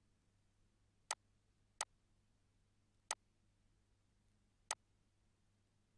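Four sharp single computer mouse clicks at uneven intervals over a faint steady low hum.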